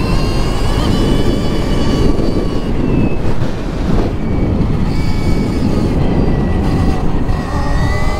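Stark Varg electric dirt bike's motor whining over heavy wind rush on the microphone while riding. The whine eases off in the middle and climbs in pitch again near the end as the bike speeds up.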